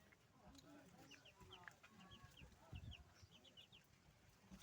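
Chickens clucking faintly, with short high chirps scattered throughout.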